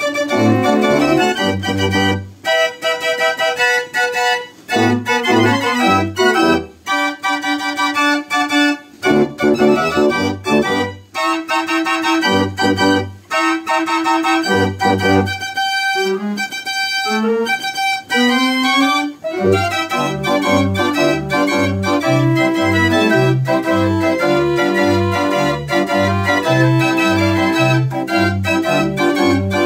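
Mechanical pipe organ playing a tune from perforated cardboard book music, with wooden pipes sounding the notes. Short gaps break the music in the first part, and from about two-thirds of the way in a regular bass beat runs under the melody.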